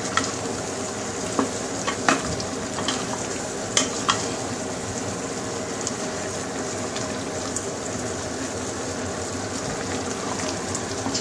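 Eggplant and sausage stew with coconut milk simmering in a pot on a gas stove, with a steady sizzle, while a wooden spatula stirs it. A few sharp knocks and scrapes of the spatula against the pot come in the first few seconds.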